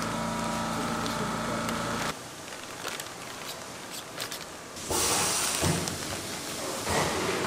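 Plastic bag liner rustling and crinkling, with the squish of seasoned cabbage, as rubber-gloved hands press kimchi down into the bag; louder from about five seconds in. For the first two seconds a steady mechanical hum runs underneath, then cuts off.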